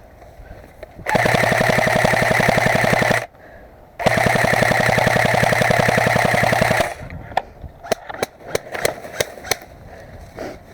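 Airsoft electric gun firing on full auto: two long, loud bursts of rapid, evenly spaced shots, each lasting about two to three seconds with a short gap between them. A scatter of sharp single clicks follows in the last few seconds.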